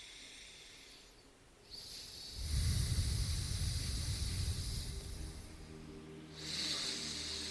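Alternate-nostril breathing: air hissing in and out through one nostril while the other is held shut, in two long breaths with a short pause about a second in and another past the two-thirds mark. A low rumble comes in about two and a half seconds in.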